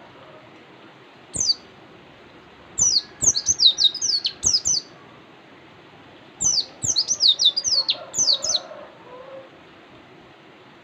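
White-eye (pleci) singing: one short high note about a second in, then two fast bursts of quick, high, downward-slurred notes, each about two seconds long.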